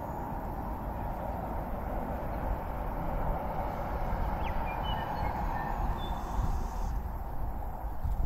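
Steady rushing outdoor noise, with a few faint bird chirps about halfway through.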